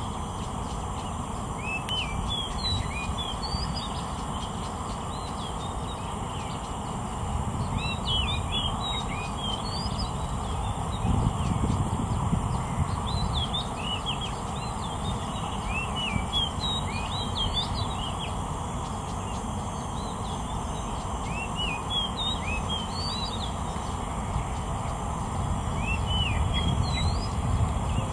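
Oriental magpie-robin singing: phrases of short, high whistled notes that come in groups every few seconds with pauses between, over a steady low background rumble.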